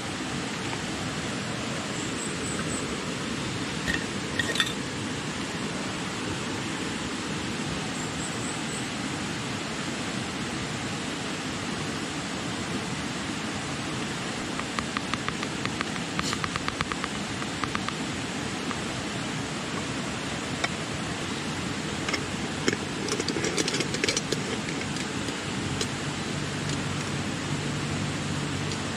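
Steady rush of flowing river water, with scattered small clicks and knocks of handling, a quick run of rapid ticks about halfway through, and a low hum near the end.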